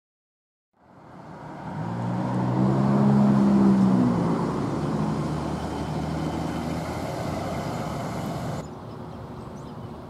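Street traffic, with a motor vehicle's engine hum building to its loudest about three seconds in and then easing off. The sound drops abruptly to quieter background traffic near the end.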